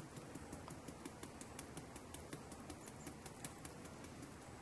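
Cinnamon shaker being shaken over a blender cup: a faint, quick, even tapping, several taps a second.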